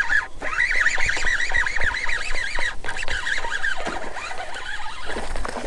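A bird calling in a quick chattering run of short chirps, which thins out and fades about three seconds in.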